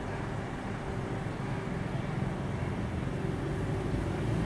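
Street traffic noise, a steady rumble of vehicle engines and tyres, slowly growing louder.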